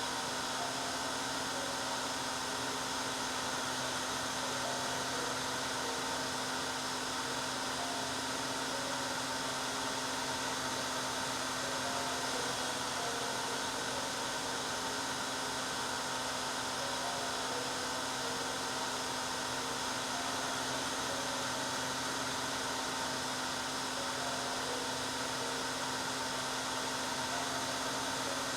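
Hair dryer running steadily: a continuous blowing noise with a constant motor hum beneath it, played as white noise to soothe a baby.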